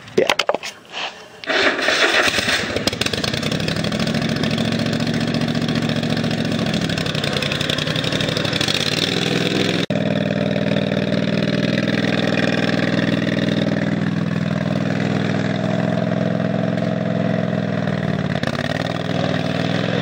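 Craftsman DYT 4000 riding mower's engine starting about a second and a half in after a few clicks, then running, its speed rising and then easing back; a brief break about halfway.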